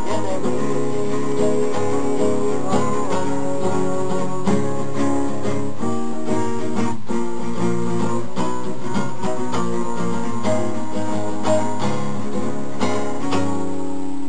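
Acoustic guitar being strummed and picked, playing chords of a song in a steady rhythm with no singing over it.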